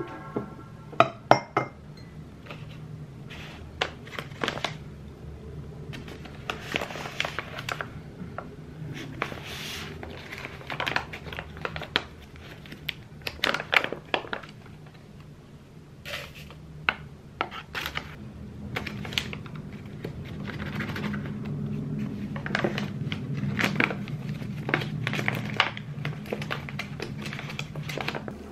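A ceramic pour-over dripper and a glass mug clinking and knocking on a tabletop, with the paper coffee bag and paper filters rustling and crinkling as they are handled. A steady low hum runs underneath and gets a little louder in the second half.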